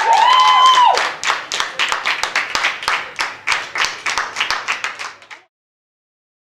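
After a held note in the first second, a small group of people clapping for about four seconds, the claps thinning out before the sound cuts off abruptly.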